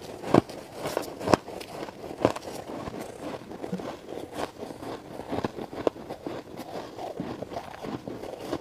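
Close-miked crunching and chewing of frost-coated ice in the mouth: a few sharp crunches in the first two and a half seconds, then steady fainter crackling as the ice is chewed.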